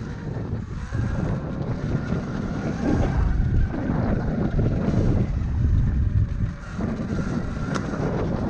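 Wind buffeting the microphone and a low rumble while a Sur-Ron electric dirt bike is ridden along a dirt trail, with a faint high electric-motor whine underneath. A single sharp click comes near the end.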